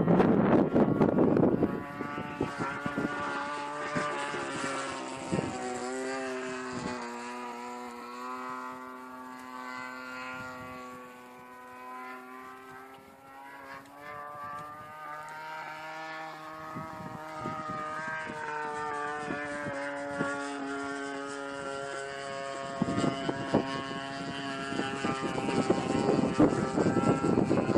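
Christen Eagle aerobatic biplane in flight, heard from on board. A loud rush of wind and engine gives way after about two seconds to a steady droning hum from the engine and propeller at low power. The hum sags slowly in pitch and then rises again, and about 23 seconds in the loud rushing noise swells back.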